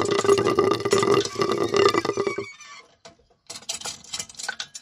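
Miniature model hand pump gurgling and sputtering as its handle is worked, drawing air and water through its straw spout. The gurgling stops about halfway through, followed by short, irregular bursts of spattering.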